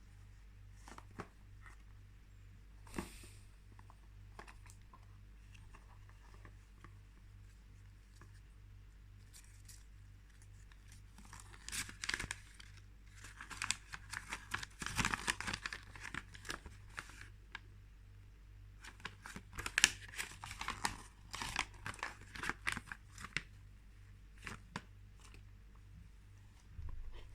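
Packaging being torn and crinkled open by hand in two spells of rustling, a few seconds each, with scattered light clicks and knocks before and between them.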